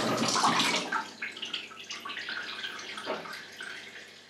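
Water splashing and sloshing in a washtub, as laundry is washed by hand. It is loudest at the start and dies down toward the end.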